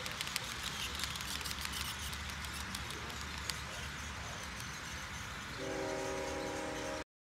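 Model freight train rolling past on the layout track, its wheels clicking over the rail joints. Near the end a model locomotive's horn sounds a steady chord, which cuts off abruptly.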